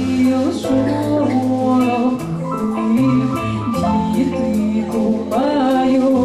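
Live band playing an instrumental passage with a stepping bass line, sustained melodic notes and a steady percussion beat.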